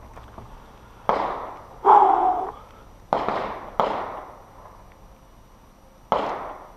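Heckler & Koch P30 LEM 9mm pistol firing five shots at an uneven pace, each followed by a short echo; the second shot is the loudest.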